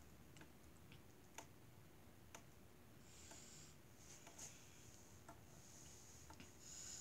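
Near silence: room tone with scattered faint clicks and a few soft hisses.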